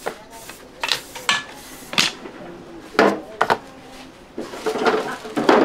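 Bakery kitchen work clatter: a series of separate sharp knocks and clinks of pans and utensils being handled, with a busier run of them near the end.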